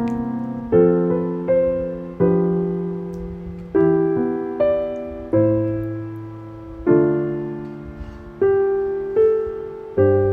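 Background music: slow piano chords, a new chord struck about every second and a half and left to ring out.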